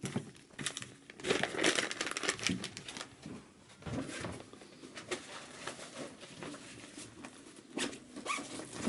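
Rustling, crinkling handling noise with scattered knocks, loudest a second or two in; near the end, the fabric of a backpack rustling as it is handled.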